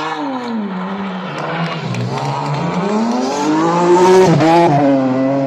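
Rally car engine at high revs: the pitch falls as the car slides through a corner, then climbs steadily as it accelerates away, dipping briefly about four seconds in before rising again as the car passes close by.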